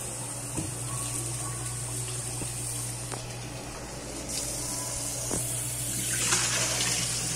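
Kitchen tap running into a stainless-steel bowl of shellfish being rinsed, the water splashing and churning in the bowl, with a few light clicks of the metal bowl. From about six seconds in the splashing grows louder as the water is poured off through a steel colander and the stream falls into the steel sink.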